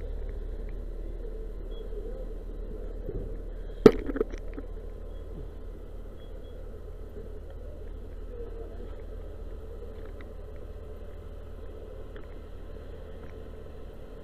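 Fire engine running with a steady low hum, and a single sharp knock about four seconds in, followed by a couple of smaller ones.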